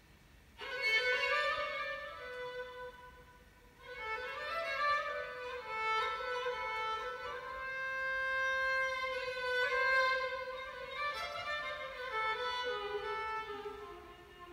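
Solo violin playing an improvised taksim in the Hicaz (zirgüle) makam, with long bowed notes and sliding ornaments. It comes in under a second in, breaks off briefly around four seconds, then plays on without a break.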